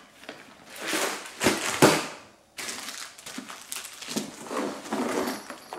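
Rummaging in a soft fabric fishing tackle bag: a clear plastic tackle box knocking against the bag's contents, with rustling and crinkling as a hand searches inside. The loudest knocks come about one to two seconds in, followed by quieter rustling.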